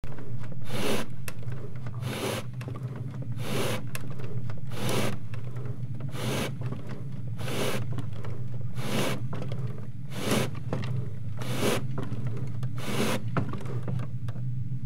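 Slow rhythmic rasping scrapes, about ten strokes roughly one and a half seconds apart, over a steady low hum.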